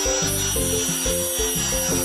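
Electric angle grinder with an abrasive cut-off disc grinding into a metal nail: a continuous hiss with a steady high whine. Background music plays underneath.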